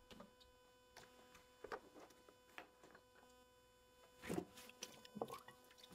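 Near silence with a faint steady electrical hum, interference on the recording. A few soft handling sounds, the loudest about four seconds in, as rubber-gloved hands reach into a plastic tub of oxalic acid bath.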